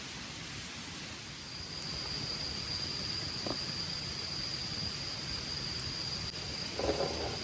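Steady high-pitched insect trill, a single held note, over a hiss of outdoor ambience, with a couple of faint ticks and a short rustle or knock near the end.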